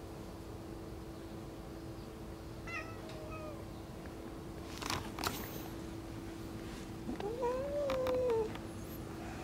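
Domestic cat meowing: a short, faint call about three seconds in, then a longer, louder meow that rises and falls near the end.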